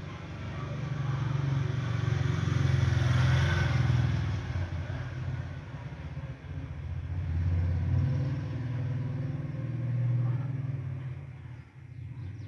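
A low motor-vehicle engine rumble that swells and fades several times, loudest about three to four seconds in.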